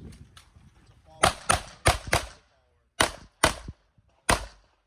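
Glock 34 Gen 4 9mm pistol firing: four fast shots about a third of a second apart, a short pause, a pair, then a single shot near the end.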